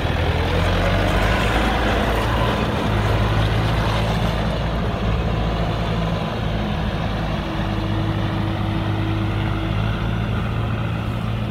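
Diesel engine of a 2002 JCB 530-70 telehandler running steadily under light throttle as the machine drives off.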